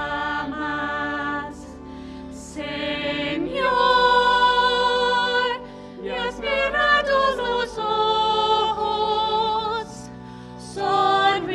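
A hymn being sung, in held phrases with a slight waver on the notes, over a steady sustained accompaniment, with brief pauses between lines.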